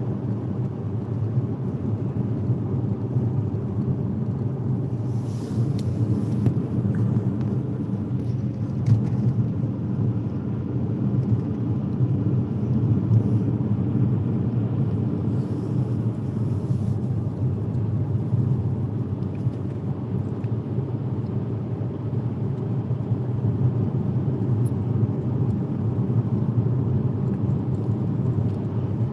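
Steady low rumble of a car driving on a snowy highway: engine and tyre noise, with faint hissy swells now and then.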